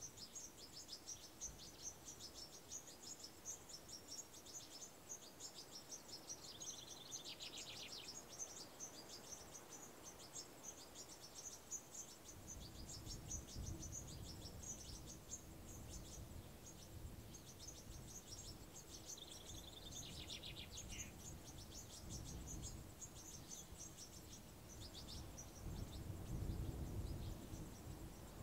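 Insects chirping in a dense, rapid high trill, with a bird twice giving a call that glides downward in pitch. About halfway through, a low, uneven rumble joins in underneath.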